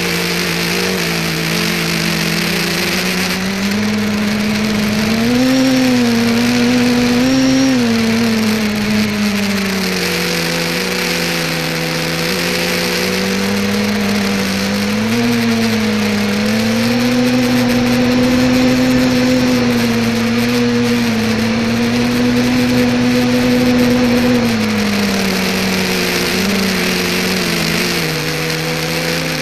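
Electric motors and propellers of a small R/C multicopter buzzing loudly, heard through its onboard camera over a rush of air noise. The buzz rises and falls in pitch several times, climbing around five to eight seconds in, holding higher for several seconds in the middle, and dropping back near the end.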